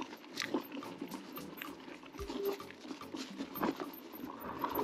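Cube Stereo full-suspension electric mountain bike rolling downhill over a rough track: tyres crunching and the bike rattling in irregular clicks and knocks, with a brief squeak about halfway through.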